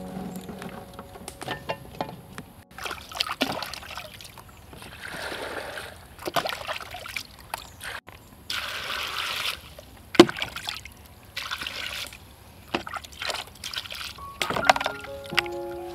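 Water poured over arrowroot tubers in an aluminium pot, in several separate pours of about a second each that splash and trickle, with a few small knocks between them.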